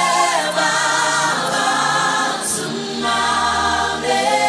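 Gospel choir singing in harmony over live band accompaniment, holding long sung notes.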